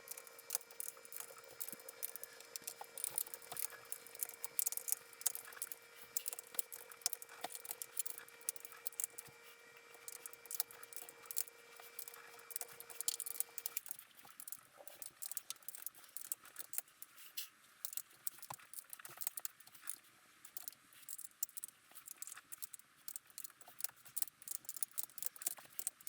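Scattered light clicks and taps of hand tools on the intake manifold bolts as they are run down and tightened. A faint steady hum stops about halfway through.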